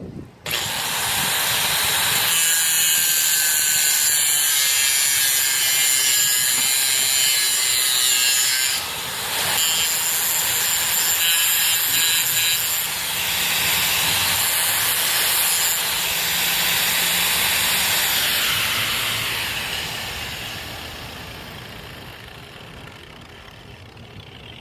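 Angle grinder with a metal cut-off disc cutting through protruding steel anchor bolts. It eases off briefly twice, then winds down near the end.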